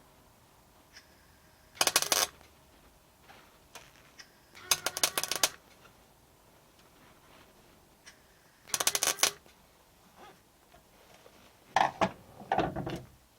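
MIG welder laying short tack welds on thin car body steel: five crackling bursts of about half a second to a second each, with quiet pauses between.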